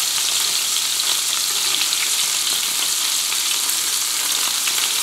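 Floured cod fillet sizzling in a frying pan of foaming butter, olive oil and lemon juice: a steady crackling hiss.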